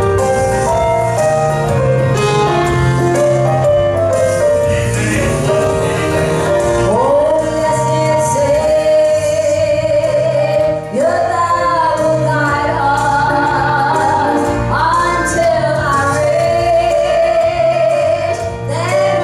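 A woman singing a gospel song into a microphone, live, over keyboard accompaniment. The first several seconds are keyboard alone, and her voice comes in about seven seconds in, with short breaths between phrases.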